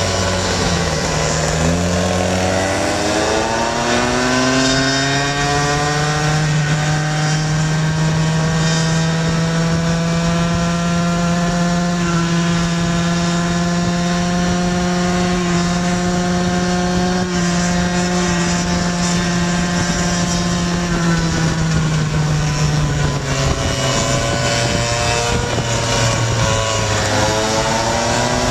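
Go-ped stand-up scooter's small two-stroke engine under way. It revs up in the first few seconds and holds a steady high drone through the middle. It eases off about three-quarters of the way through and picks up again near the end.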